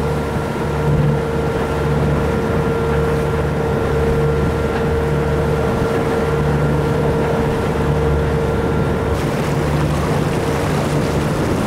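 Inboard diesel engine of a Beneteau Oceanis 45 sailing yacht running steadily under way: a low, slightly pulsing drone with a constant tone over it. Wind and water noise lie underneath, and a higher faint tone drops out about nine seconds in.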